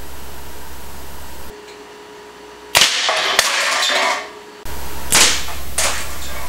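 A homemade spark-ignited combustion dart gun, fuelled with Static Guard spray, fires with a sharp crack almost three seconds in, followed by a noisy rattle. After a cut, two more sharp cracks follow.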